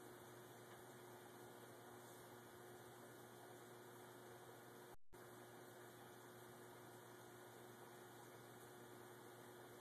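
Near silence: a faint steady electrical hum and hiss, with a short break about five seconds in.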